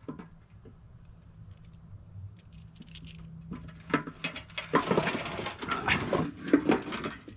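Small metal hardware and tools clinking and rattling as they are handled: a few faint clicks at first, then a dense flurry of clinks in the second half.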